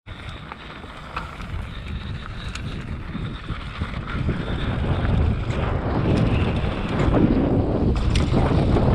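Wind buffeting the rider's camera microphone and mountain-bike tyres rumbling over a dry dirt trail, getting louder as the bike picks up speed, with scattered sharp clicks and rattles from the bike.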